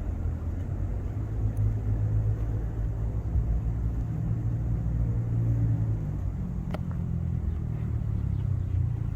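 Low, steady rumble of a motor vehicle's engine, with a single brief click about seven seconds in.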